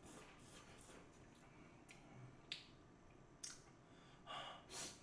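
Near silence: room tone, broken by two sharp clicks about a second apart in the middle and a short breathy sound near the end.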